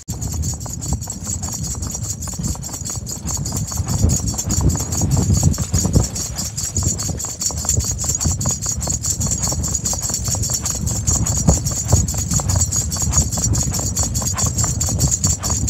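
Hoofbeats of a Kathiyawadi mare being ridden along a dirt farm track: a continuous, even run of clip-clop strokes.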